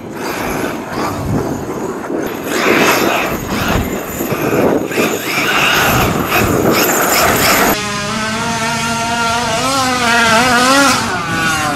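Fifth-scale RC short course trucks driving on loose gravel, with tyres scrabbling and spraying grit. About eight seconds in, the Taylor 46GT two-stroke gas engine of one truck takes over, running with a steady drone that rises and falls in pitch as the throttle is worked.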